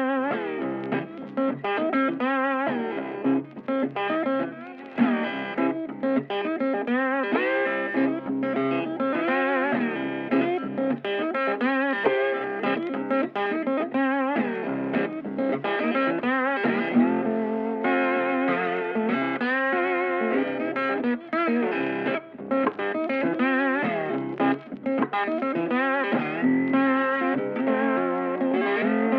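Background music led by an electric guitar playing a melody of wavering, bent notes.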